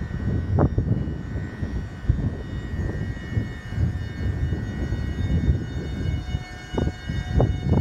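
Class 88 bi-mode locomotive moving slowly on its diesel engine: a heavy, steady low rumble with a high steady whine over it. A few short knocks from the wheels, one soon after the start and three in quick succession near the end.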